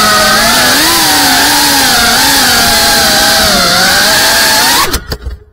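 Small FPV quadcopter's brushless motors and props whining with hiss from the onboard camera mic, the pitch rising and falling with the throttle. Near the end a few sharp knocks, and the motor sound stops abruptly.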